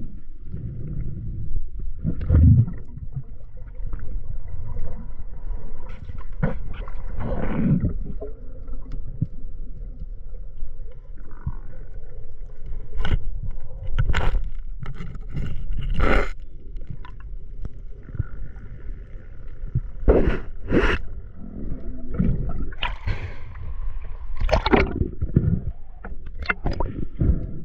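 Muffled underwater sound of a spearfishing dive: a steady low rumble of water with scattered sharp clicks, knocks and scrapes.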